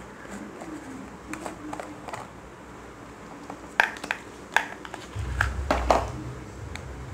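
Fingers handling a small plastic cosmetics box while trying to open it: scattered sharp plastic clicks and taps, loudest a little past the middle. A low rumble begins about five seconds in.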